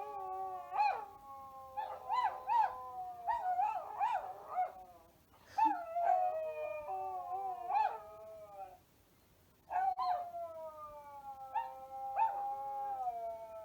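Several canines howling together in a chorus: long drawn-out howls that overlap and slowly fall in pitch, with short yips over them. The howling breaks off for about a second around nine seconds in, then starts again.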